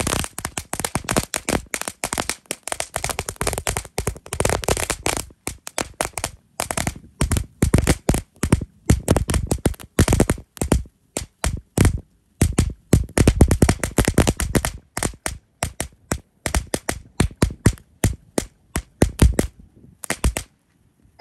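Firecrackers going off in rapid, irregular succession: dozens of sharp bangs that come in clusters, with brief lulls about halfway through and near the end.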